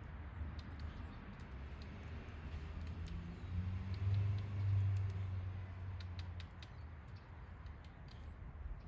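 Small backyard birds give scattered short high chips and ticks at the feeder. A low rumble swells about four seconds in and fades a few seconds later.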